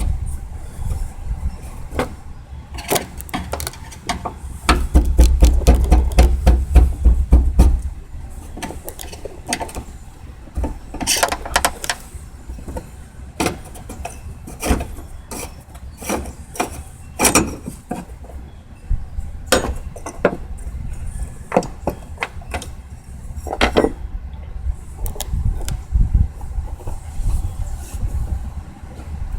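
Irregular clicks and knocks of hand tools on metal, from work on the fuel pump's lock ring and assembly. A loud low rumble comes in about five seconds in and lasts about three seconds.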